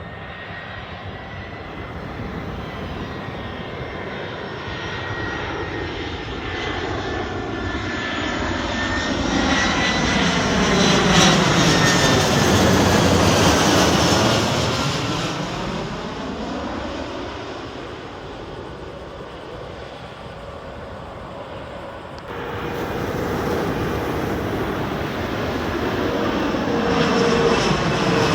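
Jet aircraft passing low overhead: the engine noise builds to a peak about halfway through and fades, with a whine that falls in pitch as it passes. After an abrupt change near the end, aircraft engine noise rises again.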